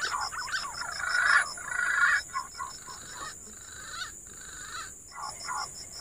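Green pigeons (punai) calling: a string of wavering whistles that rise and fall in pitch, loudest and busiest in the first two seconds, then sparser. Underneath is a steady high hiss with a fast, even ticking.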